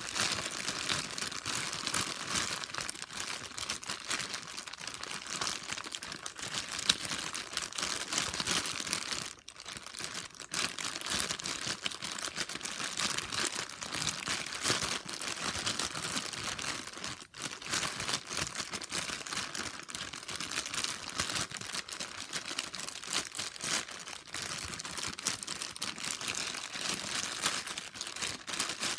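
Plastic bag crinkling without a break as a Rubik's cube is turned through it, with short lulls about nine and seventeen seconds in.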